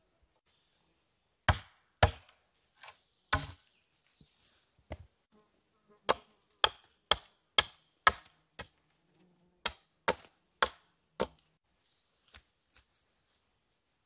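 Hatchet blows on a birch pole: about fifteen sharp knocks, a few spaced ones at first, then a run of about two a second, ending in a couple of light taps.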